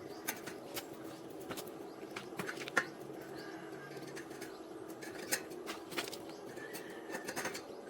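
Electric arc welding on thin square steel tube: a steady crackling hiss with sharp pops scattered through it, over a steady hum.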